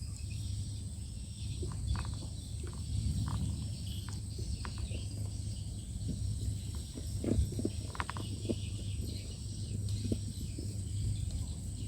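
Insects, crickets or similar, chirring in a steady high-pitched drone over a low rumble, with scattered light knocks and clicks, the loudest about seven seconds in.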